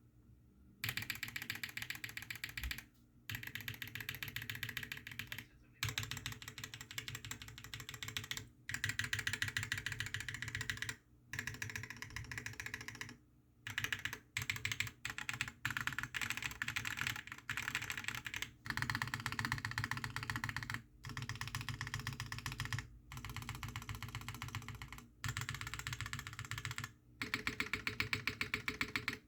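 Custom Iron180 mechanical keyboard being typed on quickly, in bursts of rapid keystrokes a few seconds long with short pauses between. The keys give a fairly high-pitched clack from the forged carbon-fibre plate and lubed Durock POM linear switches under GMK keycaps.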